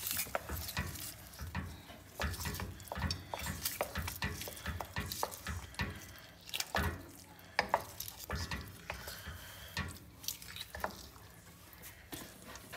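Wooden spatula stirring thick urad dal porridge in a stainless steel pressure cooker: irregular soft scrapes and light knocks against the pot.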